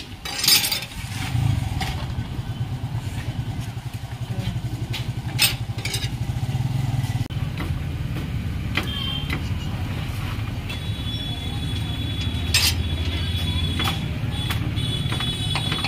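A small engine running steadily at idle, with a few sharp clicks of a steel knife striking the metal slab.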